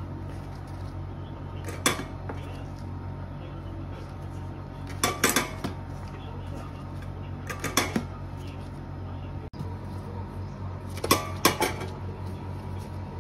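Sharp metallic clinks and clatters in four short clusters, from a steel dough cutter and the stainless steel pan of a dough scale knocking together as pieces of raisin bread dough are cut and weighed. A steady low hum runs underneath.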